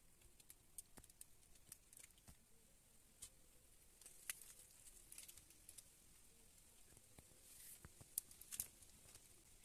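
Near silence with faint, scattered clicks.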